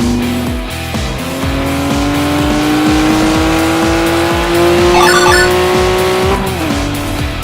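Race car engine sound effect, its pitch climbing steadily as it accelerates for about five seconds, then dropping abruptly near the end. Underneath runs music with a steady drum beat.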